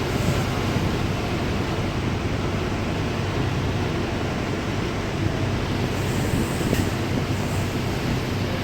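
Passenger ferry's engines running with a steady low hum under an even rush of noise.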